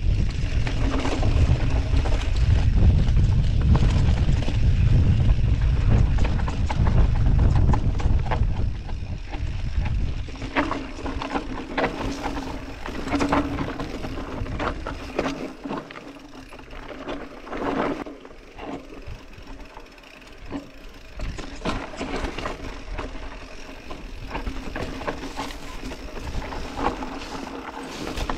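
Wind buffeting the action camera's microphone as an Orbea Occam full-suspension mountain bike descends at speed, for about the first eight seconds. After that the wind drops away and the bike's tyres, chain and frame rattle and clatter over a rocky trail in many short knocks.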